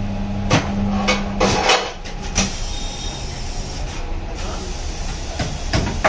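Tyre-changer machine running with a steady low hum that stops a little under two seconds in, with scattered metallic knocks and clanks of the wheel and tools against the machine. A couple more knocks near the end as the mounted wheel is lifted off the turntable.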